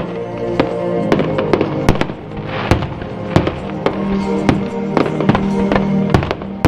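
Fireworks show: aerial shells bursting in an irregular run of sharp bangs, roughly two a second, over music with long held notes playing along with the display.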